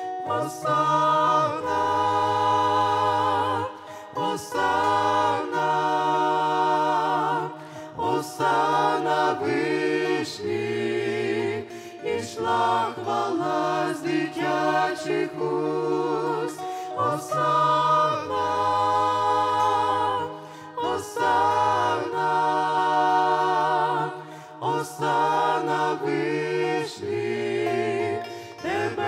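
A small mixed group of women's and men's voices singing a Ukrainian Christian hymn in harmony, in phrases of a few seconds each, with acoustic guitar accompaniment.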